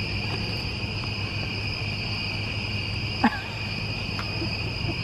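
Steady, high-pitched chorus of night insects, unbroken throughout, with one brief short sound about three seconds in.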